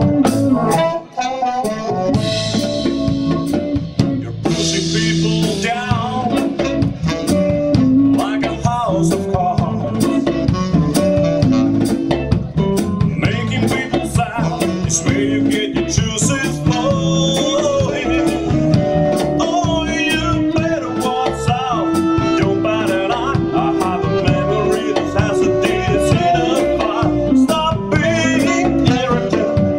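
Live blues band playing a song: a drum kit keeps a steady beat with regular cymbal strokes under guitar and bass, with a man singing.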